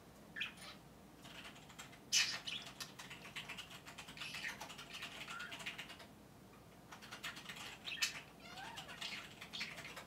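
Pet budgerigar warbling and chattering in scratchy, fast runs, with a short pause about two thirds of the way through before the chatter resumes.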